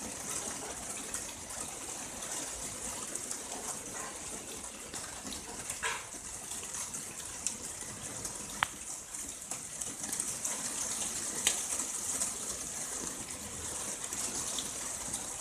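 Very fine rain falling, a steady high hiss with a few sharp drip ticks about a third, a half and three quarters of the way through.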